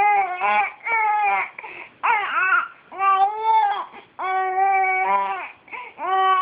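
Baby crying in a string of pitched wails, each half a second to a second long with short breaths between, most held at a steady pitch.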